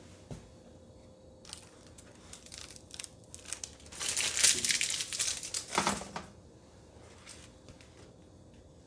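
Crinkling and crackling of an adhesive-backed keypad overlay being peeled and handled as it is readied to stick onto a range control board, loudest in the middle and dying away near the end.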